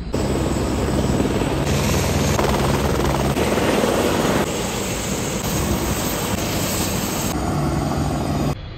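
Light helicopter with a shrouded fenestron tail rotor running close by, a loud steady rotor and turbine noise that jumps in level and tone at several abrupt cuts and stops suddenly near the end.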